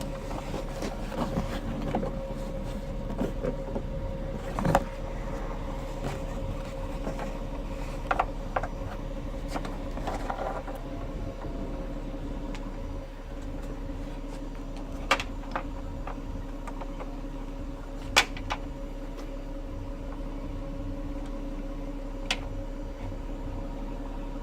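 Steady hum of the idling SUV's engine, with scattered sharp clicks and knocks from plastic light-housing parts and bulbs being handled.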